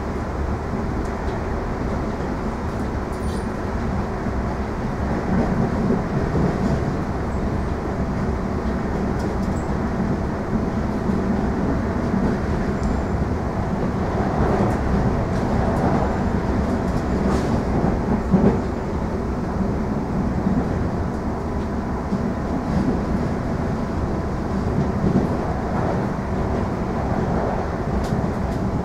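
Steady running noise inside a moving suburban electric train carriage: wheels rumbling on the rails, with a faint steady hum and a couple of light knocks about two-thirds of the way through.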